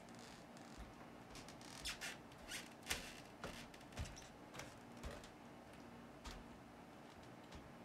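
Paintbrush working paint onto a stretched canvas: a scattering of short, faint scratchy strokes and dabs, busiest in the middle seconds, over a faint steady hum.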